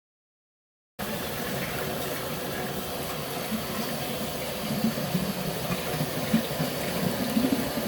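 Tofu-dough cooking machine at work: liquid bubbling and sloshing over a steady hiss, starting suddenly about a second in.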